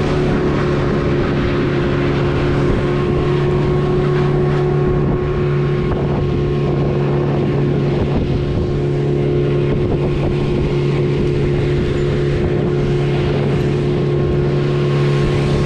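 A small engine running steadily at one unchanging speed.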